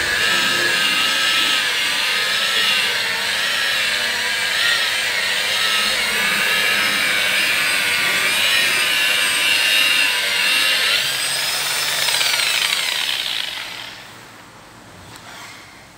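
Electric rotary car polisher running against the paint with a loud motor whine whose pitch wavers up and down. Near the end the whine falls in pitch and dies away.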